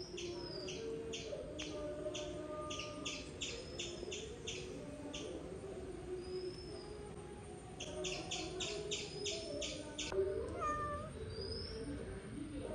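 Domestic cat meowing in drawn-out, wavering calls, with a bird's high chirps repeated several times a second in two runs.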